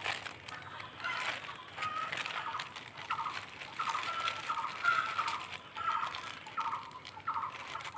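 Chickens clucking, a run of short calls repeating about every half second, with the crinkle of a thin polythene bag being stretched over the head.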